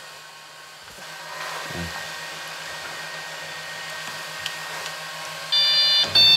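Dremel 3D printer humming steadily while its touchscreen is tapped, then about five and a half seconds in its motors start moving with loud, high-pitched whining tones that jump between pitches as the print job begins.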